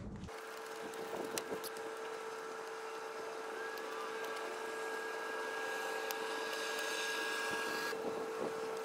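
Steady mechanical hum with one constant tone, like a motor running, and a few light clicks over it.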